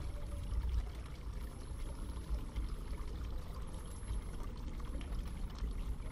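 Water running steadily with a continuous pouring sound, over a low rumble.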